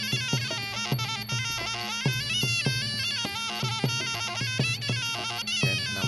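Muay Thai fight music (sarama): a shrill pi java oboe plays a stepping melody over steady beats of the klong khaek drums.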